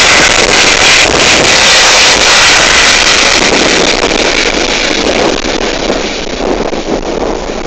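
Eurocopter EC135 air ambulance helicopter taking off: loud rushing rotor and turbine noise, with rotor wash buffeting the microphone, fading over the last few seconds as it climbs away.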